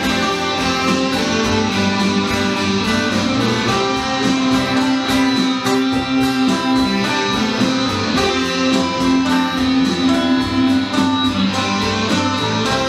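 A small rock band playing an instrumental passage together: strummed electric guitar and acoustic guitar over an electric bass guitar, at a steady beat.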